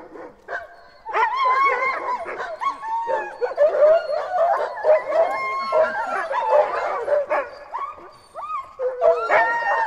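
A pack of sled dogs howling and barking all at once, many bending pitches overlapping, with a short lull about a second in and another near the end.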